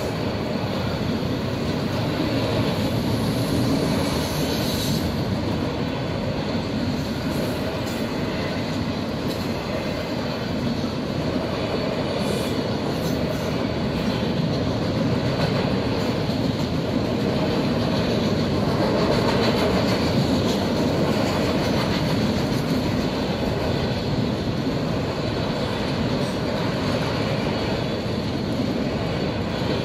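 Freight train of autorack cars rolling past, a steady, unbroken noise of wheels on rail.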